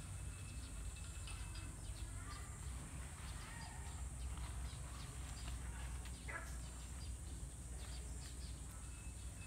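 Dry plant leaves and stalks rustling and crackling as they are gathered and tossed by hand, with a few faint bird chirps and one short call about six seconds in.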